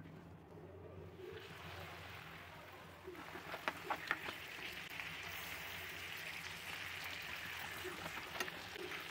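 Liquid simmering in a stovetop pan, a steady hiss that builds over the first couple of seconds, with a few sharp clicks of a steel spoon against the pan around four seconds in and once more near the end.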